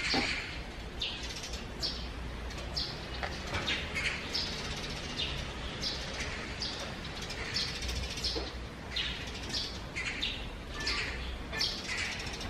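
Small birds chirping: short, high chirps at an irregular pace of one or two a second, over a steady low background rumble.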